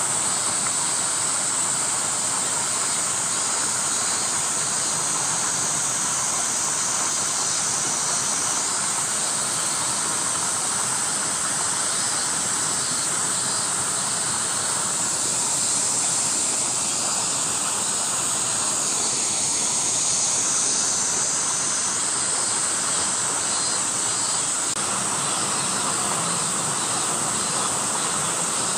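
Steady outdoor ambience: a continuous high-pitched hiss over a low, even rushing noise, with a faint whine that dips and comes back up past the middle.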